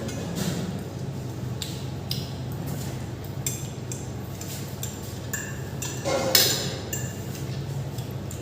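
Cutlery clicking and clinking against plates while food is eaten, in short irregular taps, with one louder burst about six seconds in.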